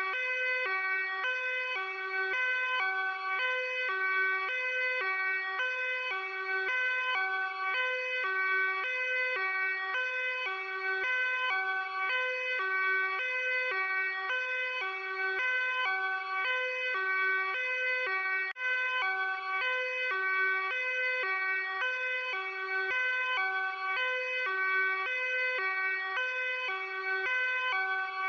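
Luxembourg police car's hi-lo two-tone siren, alternating evenly and without pause between a low note and a higher note.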